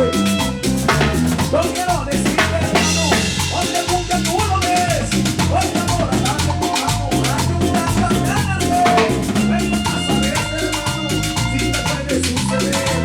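Live Latin band playing an instrumental passage, with a stepping bass line, drum kit and a wavering melody line over a steady dance beat.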